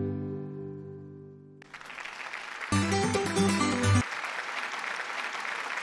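Acoustic guitar music fading out, then applause starting suddenly about a second and a half in, with a short burst of music over it in the middle.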